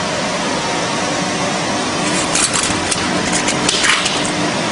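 Ice cream vending machine's motor and fan running with a steady hum and whoosh, with a few light, quick clinks about halfway through.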